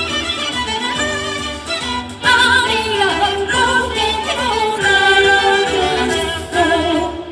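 Live fusion gugak music: a woman singing with a wavering vibrato over violin, haegeum and gayageum. The music gets louder about two seconds in.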